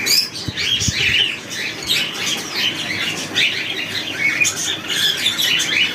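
Caged cockatiels and budgerigars in an aviary chattering, with many short chirps and calls overlapping continuously.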